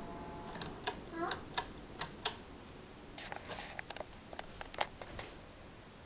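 52-inch Hampton Bay Cameron Plus ceiling fan running, with a stream of light, irregular clicks and ticks over a faint steady background.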